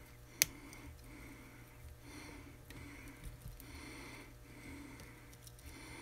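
A man's steady wheezy breathing in and out, from someone recovering from major surgery, with one sharp click of the pliers about half a second in as he works the coax braid.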